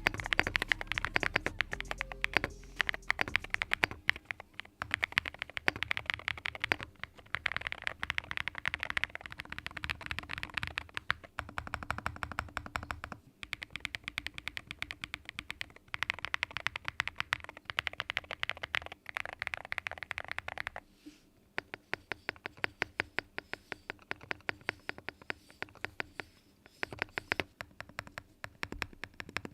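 Akko MU01 mechanical keyboard with a walnut wood case and thick keycaps being typed on in a sound test: rapid, continuous keystroke clacks, briefly thinning out about two-thirds of the way through.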